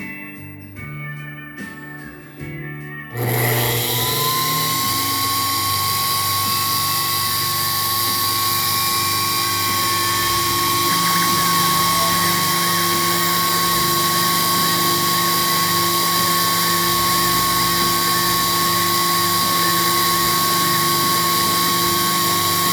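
Sherline milling machine spindle starts about three seconds in and runs steadily at high speed, around 10,000 rpm, with a steady high whine that rises briefly as it comes up to speed. Quiet background music plays before it starts.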